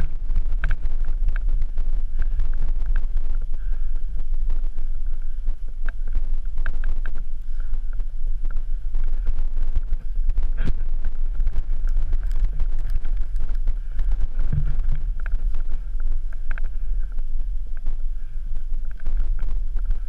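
Wind buffeting the microphone of an action camera, a steady loud low rumble, broken by scattered knocks and scrapes as the climbers move through snow and rock with axes and poles.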